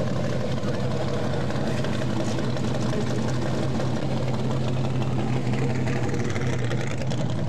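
Several dirt-track stock car engines idling steadily as the cars roll slowly past in a line.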